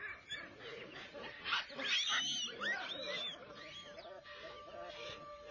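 A flurry of short cries that rise and fall in pitch, loudest about two seconds in. From about halfway, soft held music notes come in underneath.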